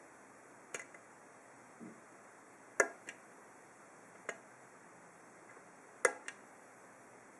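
Hook pick and tension wrench working the pins of a 7-pin ASSA pin-tumbler cylinder: scattered sharp metallic clicks, about seven in all, with two much louder ones a little under three seconds and about six seconds in, and one soft thump around two seconds.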